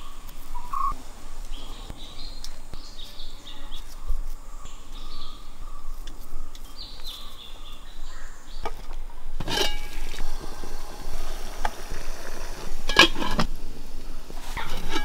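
Birds chirping and calling against steady background ambience, with two short, louder sharp sounds about nine and thirteen seconds in.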